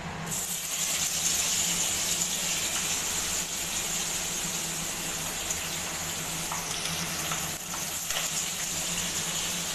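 Pabda fish sizzling as it fries in hot oil in a steel kadai. The sizzle starts suddenly as the fish goes into the oil and then runs steady, with a few faint spits.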